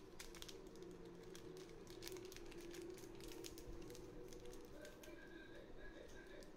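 Faint crinkling and crackling of a small foil-lined sachet being handled and torn open by hand, a steady run of small sharp crackles.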